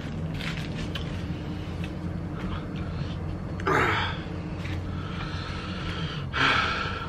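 A man chewing food with small wet smacking sounds, and two short loud breaths, one about three and a half seconds in and one about six seconds in, over a steady low hum.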